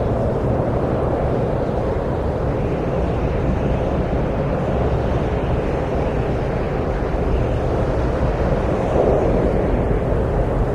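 Wind blowing steadily, a low rushing noise that swells slightly about nine seconds in.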